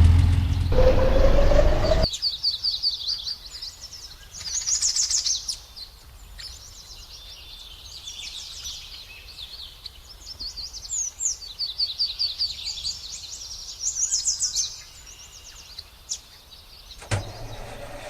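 Small birds chirping in repeated quick high trills. A loud low running sound with a rising tone cuts off abruptly about two seconds in, and a similar low sound starts suddenly near the end.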